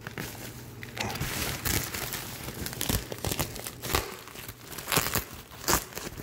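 Plastic packaging bags crinkling and rustling as hands dig through a box of bagged toys, in irregular crackles with a few louder ones near the end.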